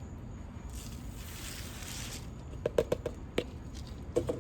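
Dry bird seed rustling and shifting inside a plastic tube bird feeder as it is shaken and tipped to work in chili powder, followed by a few sharp clicks and knocks from the plastic tube about two-thirds of the way through and again near the end.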